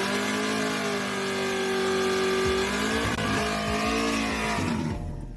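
Car engine revving up, held at high revs for a few seconds, then dropping back near the end.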